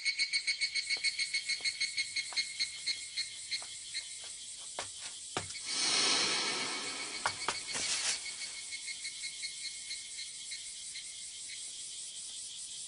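Higurashi evening cicadas calling: a fast train of high ringing pulses, about four a second, that grows fainter. A swell of rushing noise comes about six seconds in, with a shorter one near eight seconds.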